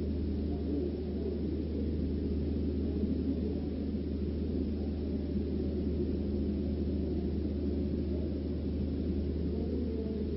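A steady low hum with a dull, even rumble above it, unchanging throughout and with no distinct events.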